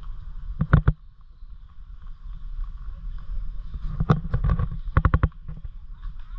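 Steady low rumble of wind and movement on a handheld action camera's microphone, with short clusters of sharp knocks and crackles about a second in and again around four and five seconds in.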